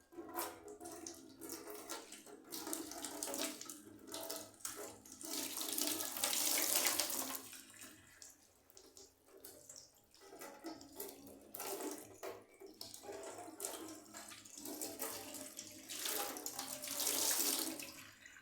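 Water running from a tap into a sink, with uneven splashing as things are washed under it. The flow grows loudest about six seconds in and again near the end.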